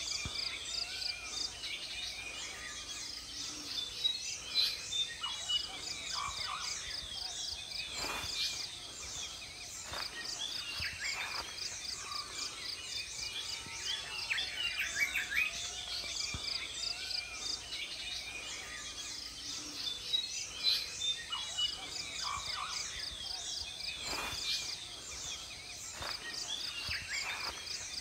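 Many birds calling with chirps and whistles in an early-morning chorus, over a steady, pulsing high-pitched chorus of insects.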